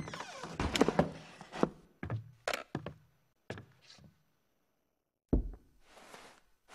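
Wooden knocks, clicks and thunks: a pair of wooden doors opening at the start, then a small wooden box being handled and its lid opened, with a dull thump about five seconds in and a short rustle near the end.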